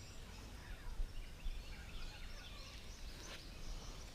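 Birds chirping and singing faintly, many short high notes one after another, over a low background rumble.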